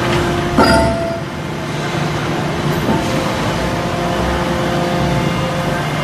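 Forging press working an aluminium forging: a steady machinery hum with several held tones. A sudden louder burst with short ringing tones comes just over half a second in, and a smaller one near three seconds.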